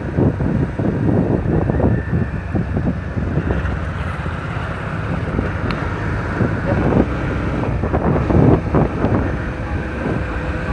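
Wind buffeting a phone microphone on a moving motorcycle, over the rumble of the ride. The gusts swell more strongly in the second half.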